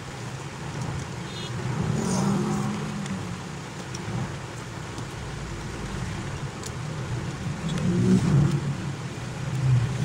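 A steady low rumble, like engine noise, that swells louder twice: about two seconds in and again about eight seconds in.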